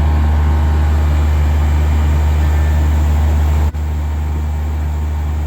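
Window-type air conditioner running with a steady low hum. About three and a half seconds in, the hum drops out for an instant and carries on a little quieter.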